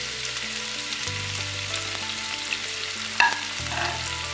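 Shredded cabbage, capsicum and carrot sizzling in hot oil in a frying pan, a steady frying hiss. About three seconds in there is a sharp knock, with a couple of lighter ones after it.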